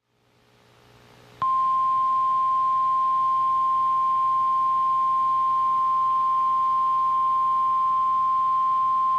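NOAA Weather Radio warning alarm tone: a single steady 1050 Hz tone that comes in about a second and a half in and holds unbroken, signalling that a warning message is about to be broadcast.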